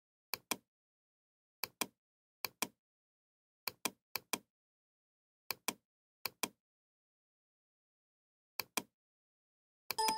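Computer mouse clicks, each a quick press-and-release pair, repeated about nine times at irregular intervals with dead silence between. A short ringing chime starts right at the end.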